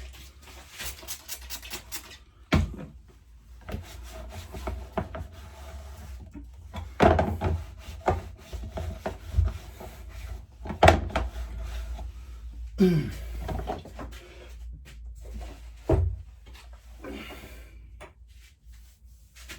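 Rubbing and scraping, broken by scattered knocks and clatters, about four of them louder than the rest.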